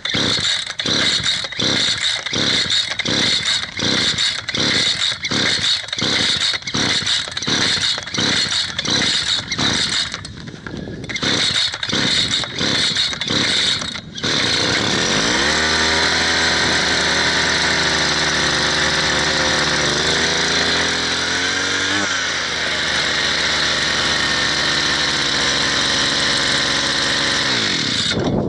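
Two-stroke brushcutter engine being cranked on full choke with repeated rapid pulls of the recoil starter, each pull a short burst, with no primer bulb fitted so it takes many pulls. About fourteen seconds in it catches and runs, revving up and then holding a steady fast idle, before cutting out near the end.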